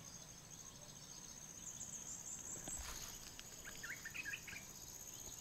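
Jungle insect chorus, a steady pulsing high trill, with a few short bird chirps about two-thirds of the way in.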